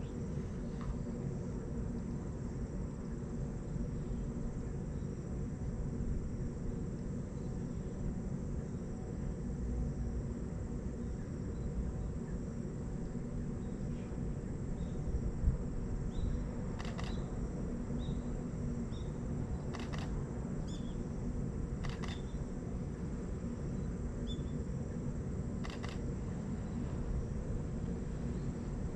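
Steady low outdoor background rumble, with a few faint short high chirps in the middle and four soft clicks spread over the second half.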